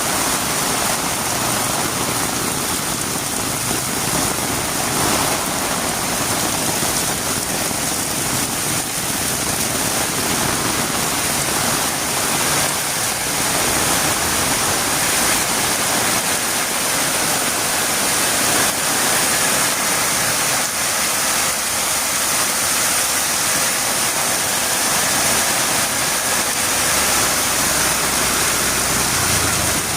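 Heavy rain falling steadily on a road, an even, continuous hiss.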